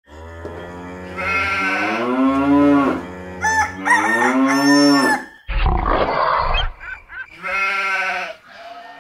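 A succession of farm-animal calls, crowing-like calls first, then a short rough noise in the middle and a wavering sheep bleat near the end.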